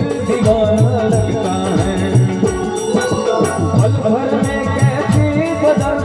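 Indian folk-style music with a steady percussion beat and a shaker-like rattle, with wavering melodic lines between sung verses.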